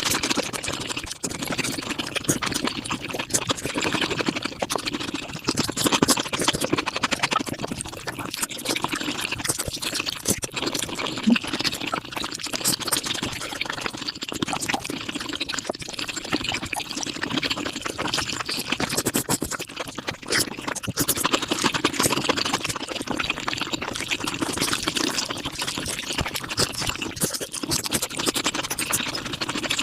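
Mukbang eating sounds, chewing and mouth noises, played back at five times normal speed, making a dense, unbroken run of quick clicks and smacks.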